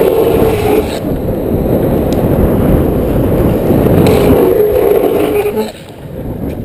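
Wind noise on the microphone and longboard wheels rolling fast on asphalt during a downhill run. It stays loud until nearly six seconds in, then drops off sharply as the board slows.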